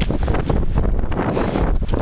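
Wind blowing hard across the microphone: a loud, rushing rumble that rises and falls unevenly.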